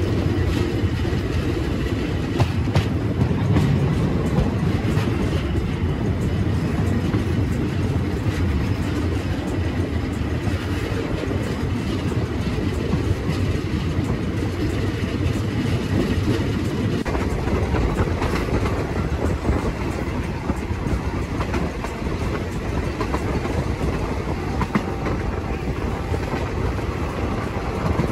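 Passenger train running along the rails, heard from aboard a coach: a steady rumble of wheels on track with scattered clicks.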